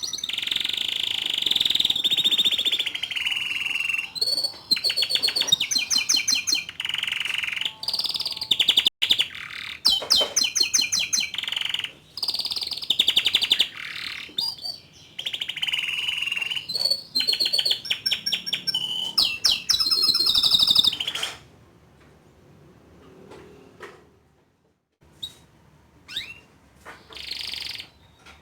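Young male canary singing a long, continuous song of rapid trills and warbled phrases. The song breaks off about 21 seconds in, leaving only a few short chirps.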